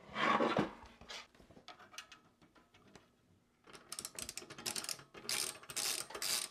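Small screwdriver driving screws to fix a fan bracket to a metal drive cage: a short clatter of handling near the start, then from a few seconds in, a run of scratchy rasps and clicks as the screws are turned.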